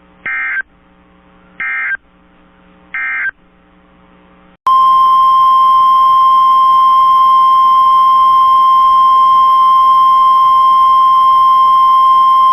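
Three short warbling data bursts, about 1.3 s apart: the SAME end-of-message code of an Emergency Alert System broadcast, over a faint mains hum. About a second and a half later a loud, steady 1050 Hz NOAA Weather Radio warning alarm tone begins and holds.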